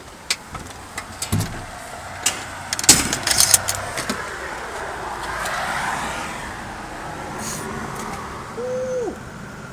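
A string of sharp clicks and knocks, densest about three seconds in, then a passing car whose road noise swells and fades midway. Near the end comes a short held tone that drops off at its end.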